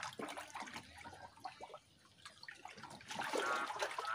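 Irregular splashing and sloshing of shallow muddy water as hands grope for catfish in a drained concrete pond.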